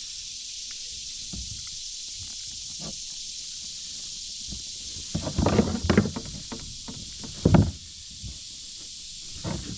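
Steady high buzz of late-summer insects. A cluster of knocks and rustles comes about five to six seconds in, and a loud thud about seven and a half seconds in, as a freshly landed bass is handled in a kayak.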